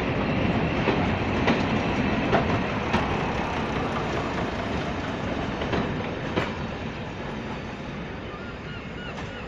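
Diesel multiple unit train pulling away, its wheels clacking over rail joints, the rumble and clacks fading steadily as it draws off.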